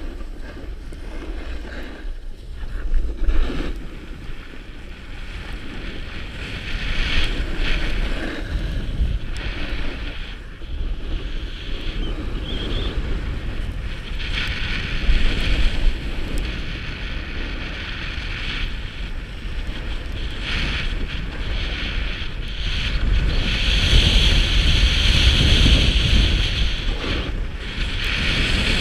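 Wind buffeting the microphone, with the hiss and scrape of skis sliding over packed snow on a downhill run. The hiss swells in several stretches and is loudest near the end.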